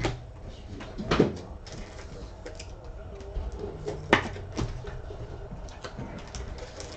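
Trading cards being handled and slid into rigid plastic top loaders: scattered light clicks and knocks, with two sharper taps about a second in and about four seconds in.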